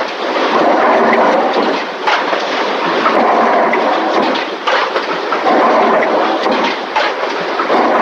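Railway carriage in motion: a steady rolling rumble from the wheels with scattered clicks, swelling and easing every second or two. The old film soundtrack is sped up to 1.5 times, which raises its pitch.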